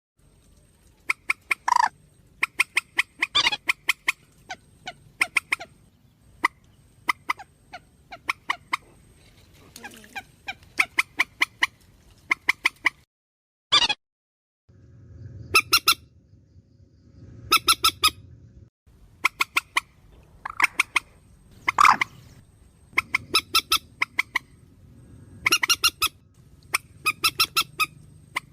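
Recorded calls of the trích ré, a Vietnamese waterbird, played as a bird-trapping lure: rapid runs of short, sharp clucking notes, a few at a time, repeated with short pauses, over a faint steady hum. The recording drops out briefly about halfway through and picks up again.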